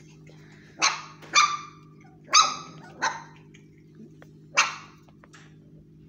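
Puppies yapping: five short, high-pitched barks at irregular intervals, over a steady low hum.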